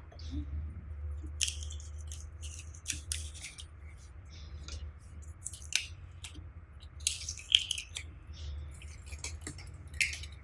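Slime being squished and stretched by hand, making irregular sticky pops and crackles over a low steady hum.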